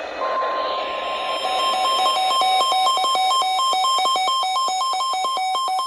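NOAA Weather Radio warning alarm tone over the broadcast: a steady high beep starts about a quarter second in, and from about a second and a half in it switches rapidly back and forth with a lower tone, several changes a second. It signals the start of a severe thunderstorm warning.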